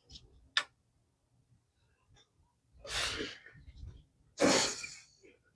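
Two short, hard puffs of breath, about a second and a half apart, the second louder, from a person straining at work. A single sharp click about half a second in.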